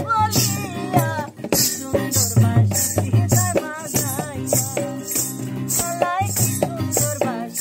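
A woman singing a Bengali song with vibrato over acoustic guitar, with a shaker keeping a steady beat about twice a second.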